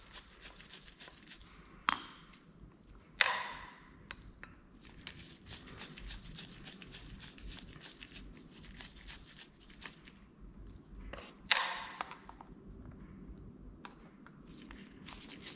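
Screwdriver work on a Solex Kadron carburetor's diaphragm cover: faint ticks and scrapes, broken by a few sharp metallic clinks. Two of the clinks ring briefly, about three seconds in and near twelve seconds, as small screws are dropped into a plastic parts tray.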